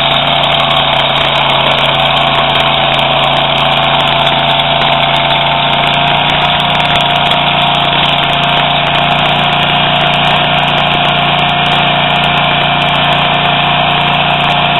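Toro STX-26 stump grinder's engine running steadily at an even speed, with a steady whine over it.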